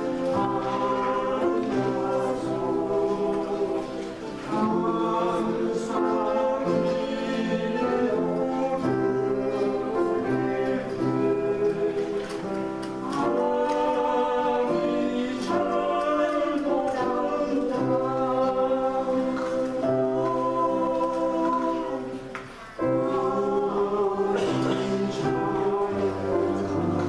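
A choir singing slow, sustained phrases with instrumental accompaniment.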